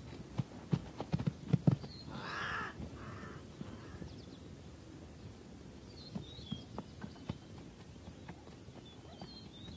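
Zebra hooves thudding and stamping in an uneven run of knocks over the first two seconds. Then come three harsh animal calls, the first the longest, with faint high bird chirps now and then.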